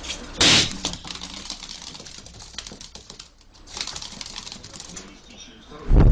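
Rubber balloon being batted and pushed across the floor by a small pet: scuffs, rubbing and light taps, with a loud burst about half a second in. There is a heavy thump at the very end as the camera is jostled.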